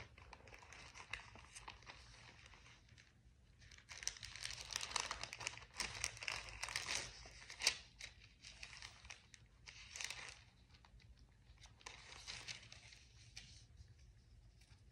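Pages of a Bible being leafed through, with soft rustling and crinkling that comes in spurts and is busiest in the middle. The thin pages are sticking together as they are turned.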